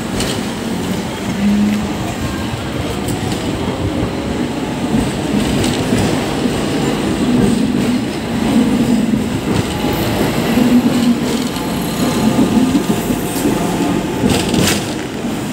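Hong Kong double-decker tram running along its street rails: a steady rumble of wheels on track, with a couple of sharp clicks near the end.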